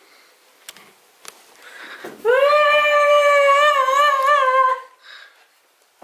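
A person's long, high-pitched whine, held for about two and a half seconds and wavering near the end. Two faint clicks come before it.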